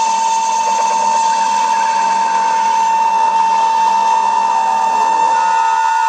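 A loud, steady high-pitched whine over a dense hiss, with fainter higher tones joining near the end.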